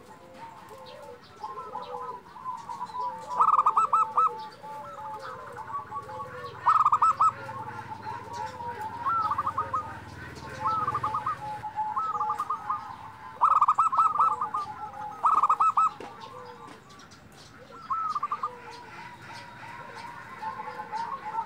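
Zebra dove (perkutut) singing: a steady run of short cooing notes, broken four times by louder bursts of rapid staccato notes.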